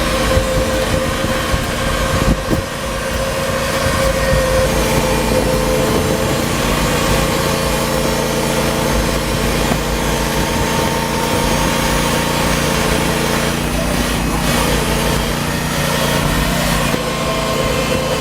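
Small petrol engine of a Hudson Oscar 30 portable band sawmill running steadily.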